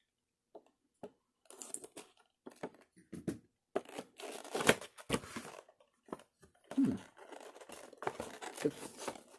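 Small cardboard product box being opened by hand: irregular rustling, scraping and tearing of cardboard and packaging, with a few sharp clicks. It starts after about a second of near silence.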